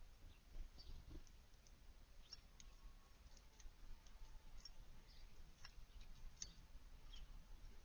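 Faint, scattered short high chips and ticks from small songbirds, a dozen or so irregular notes.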